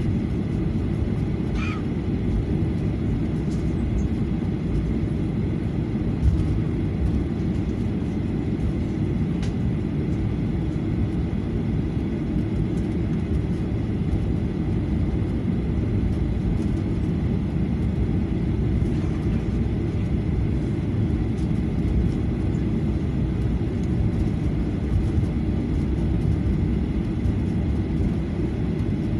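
Cabin noise of a Boeing 737-800 taxiing, heard from a seat over the wing: a steady low rumble of the engines at low thrust and the wheels rolling on the taxiway.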